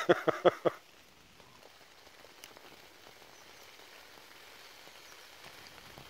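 A brief burst of a man's laughter, five quick pulses, then a faint, steady patter of light rain.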